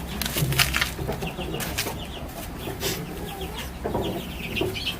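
Chickens clucking, with several sharp clicks or knocks in among the calls.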